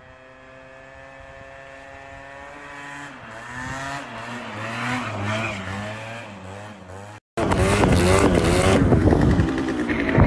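A two-stroke scooter engine holding a wheelie as it approaches: at first a steady buzz, then the pitch wavers up and down as the throttle is worked, growing louder. About seven seconds in it cuts to a much louder, close-up two-stroke scooter revving hard with quick rises and falls in pitch.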